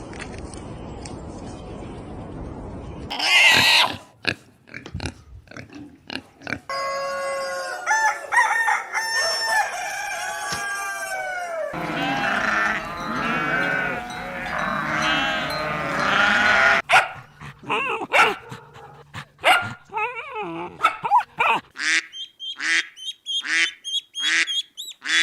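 Animal calls from farm or wild herbivores. After a steady hiss and one loud burst, many overlapping pitched calls rise and fall; near the end they give way to a fast run of short repeated calls.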